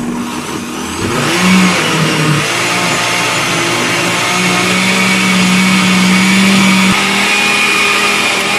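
Oster countertop blender running at full speed, blending a thick mixture of pumpkin, milk, cream cheese and condensed milk. It gets louder about a second in, its motor pitch wavers for the next few seconds as the load churns, then holds steady.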